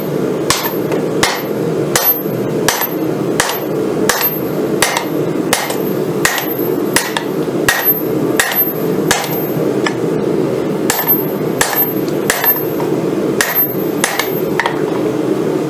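Hand hammer striking a red-hot steel rail spring clip on an anvil, about one to two blows a second with a short pause about ten seconds in, as the bent bar is beaten straight. A steady low rumble runs underneath.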